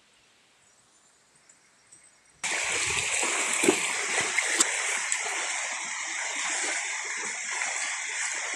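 Near silence at first, then from about two and a half seconds in a shallow rocky stream rushing steadily over stones, with a few sharp splashes as people wade through the water.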